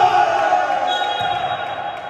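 Volleyball players shouting together in a long, held cheer after winning the point.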